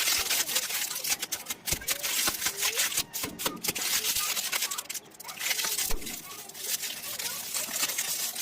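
Plastic candy wrappers crinkling and crackling as packaged sweets are handled and torn open, a dense run of sharp little crackles over a bright rustle.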